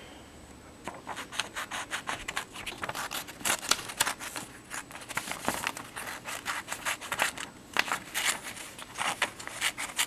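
Small spring-loaded scissors of a Leatherman Micra multitool cutting through a sheet of paper in a run of quick, short snips, starting about a second in.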